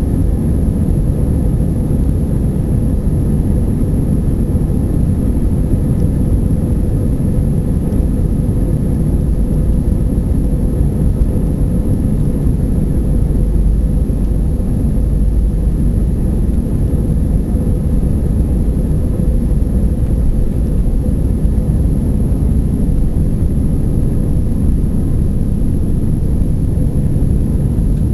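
Airbus A320-200 heard from inside the cabin on its takeoff roll and initial climb: the jet engines at takeoff thrust and the airframe and wheels rumbling make a loud, steady noise, with a steady mid-pitched hum running through it.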